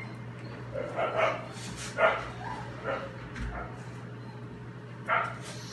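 Dog giving several short barks, about a second apart with a longer gap before the last; the loudest comes about two seconds in.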